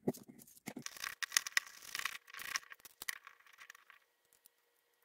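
Plastic parts and wiring of a tap water heater's housing being handled and prised with a small screwdriver: a run of irregular clicks, rattles and scrapes that dies away about four seconds in.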